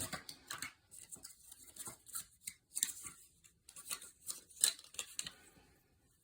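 Irregular light clicks and plastic rustling from handling memory modules and their plastic packaging, stopping about six seconds in.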